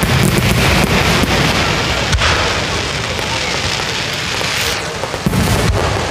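Aerial fireworks shells bursting overhead: a dense, steady crackle of bursting stars, with a deep rumble at the start and sharp bangs about two seconds in and twice near the end.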